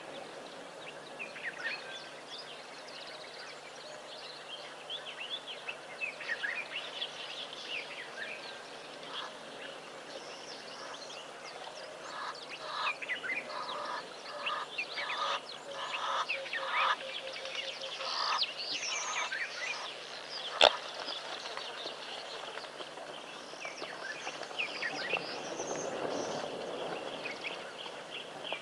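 Wild birds calling and singing around a bush waterhole: many quick high chirps throughout, with a run of evenly spaced repeated calls, about two a second, in the middle. A single sharp click sounds about two-thirds of the way through.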